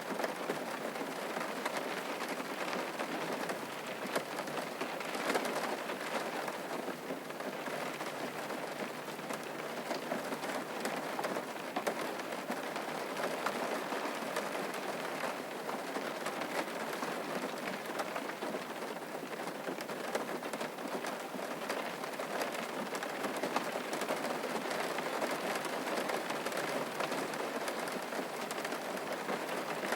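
Steady rain falling, an even hiss with many small drop ticks and no change in strength.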